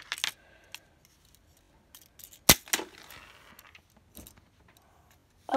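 Hard plastic Lego pieces clicking and knocking while being handled, a few scattered clicks with one sharp snap about halfway through.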